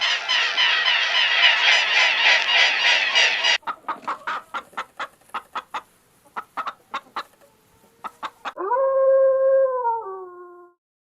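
Chickens clucking: a dense flock chatter for the first three and a half seconds, then a run of scattered short clucks. About eight and a half seconds in, a long howl starts, holds its pitch and then drops at the end.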